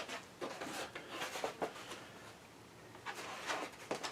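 Faint rustling and a few light knocks of objects being handled, in scattered short bursts.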